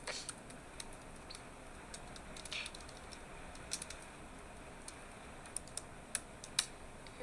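Irregular light taps and clicks of fingers on a phone touchscreen, a dozen or so spread unevenly over quiet room tone.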